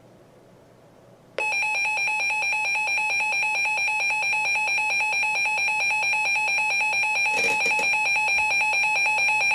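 Emergency Alert System two-tone attention signal, starting abruptly about a second and a half in over a faint hiss and holding steady and loud, with a fast even warble from the two tones beating together. It announces that an emergency alert message follows. A brief burst of static crackles through it near the end.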